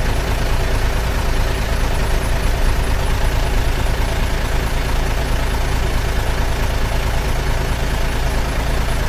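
Heavy truck engine running steadily: a loud, even low rumble with a faint high-pitched whine above it.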